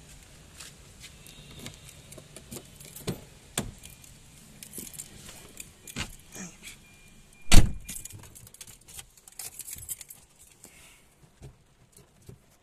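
Scattered clicks and jangling of car keys and handling while getting into a Tata Zest, with one heavy thump a little past halfway, the loudest sound, from the car door shutting.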